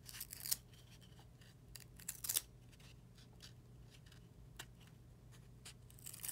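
Stiff chrome trading cards sliding and scraping against each other as a small stack is flipped through by hand: a few short, crisp swishes, the loudest about half a second and about two seconds in, and another near the end.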